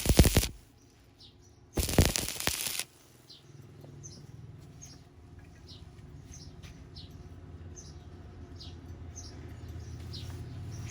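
Stick-welding arc crackling and cutting off about half a second in, then a second short burst of arc crackle lasting about a second. After that, small birds chirp repeatedly over a low steady hum.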